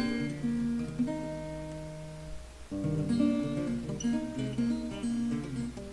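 Acoustic guitar music of plucked notes and chords; a held chord fades about halfway through before the playing starts again.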